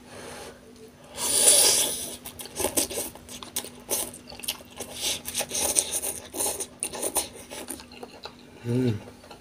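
Close-miked eating sounds: a louder rush about a second in, then chewing with many small clicks and scrapes, and a brief "mm" near the end.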